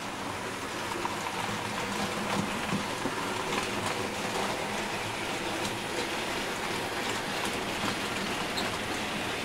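OO gauge model goods wagons rolling along the track behind a model BR 4MT tank engine: a steady rattling wheel-on-rail noise with faint scattered clicks.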